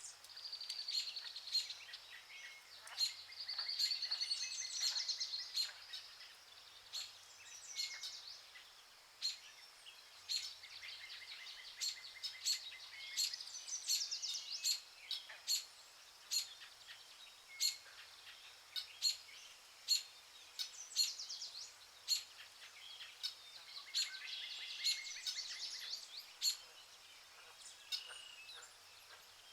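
Songbirds singing: repeated high trilled and warbling phrases, with short sharp chip-like clicks about once a second throughout.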